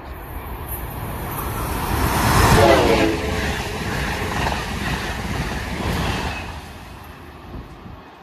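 Passenger train passing through a station at speed: a rush of wheel and rail noise that swells to its loudest about three seconds in. A whine drops in pitch as the train goes by, and the sound fades after about six seconds.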